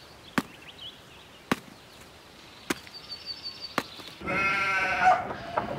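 Axe chopping into a dead tree trunk, four blows about a second apart. Then, about four seconds in, sheep bleating, louder than the chopping.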